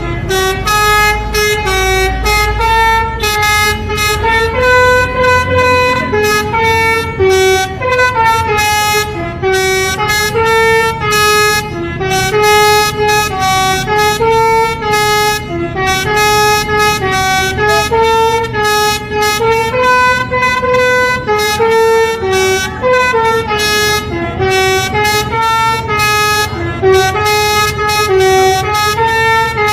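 Telolet-style multi-tone vehicle horn playing a continuous tune of short, bright notes, over a low engine rumble.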